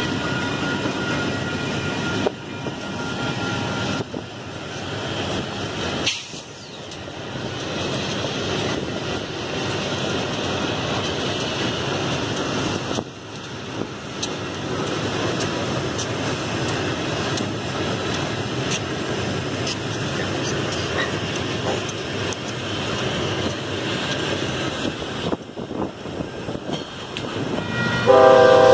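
A consist of diesel freight locomotives rolling past: a steady rumble of engines and wheels on the rails, dropping out briefly a few times. Near the end a locomotive horn starts blowing.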